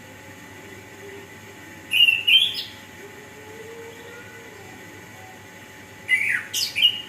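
Chestnut-capped thrush (anis kembang) singing: two short phrases of loud, high whistled notes with quick upward sweeps, about two seconds in and again near the end.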